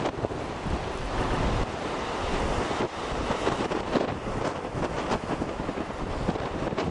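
Wind buffeting the microphone in gusts over the steady wash of sea surf breaking into a cove.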